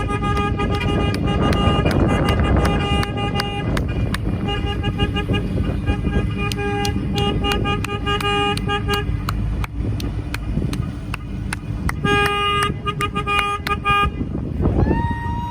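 Car horns honking again and again, long and short blasts overlapping, over the noise of passing traffic. Near the end one horn or whistle slides up in pitch and holds.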